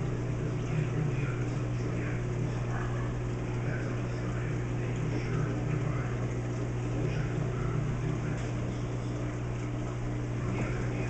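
Steady low electrical hum of a reef aquarium's running equipment, its circulation pumps among it, at an even level with no change.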